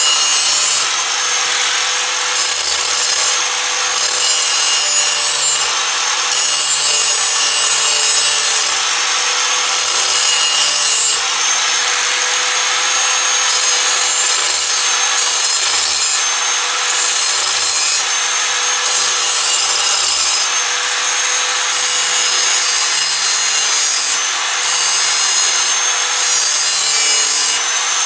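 Angle grinder running with its disc pressed against the edge of a rusty steel lawn mower blade, a steady loud grinding of metal with an even motor whine underneath. The blade's edge is badly nicked and is being ground back down before sharpening.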